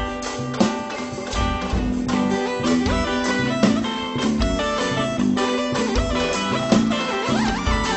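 Live band music led by guitar over bass and drums, with no singing.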